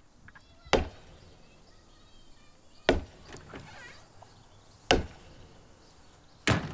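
A baseball bat striking the trunk of a dead, fallen tree: four hard hits on wood, about two seconds apart.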